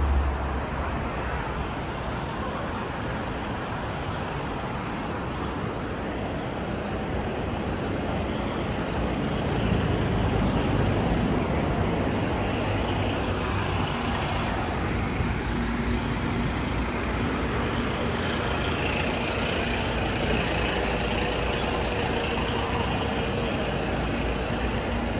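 Steady city street traffic, with vehicles passing close by. It grows louder about ten seconds in, and a heavier engine hum comes through in the second half.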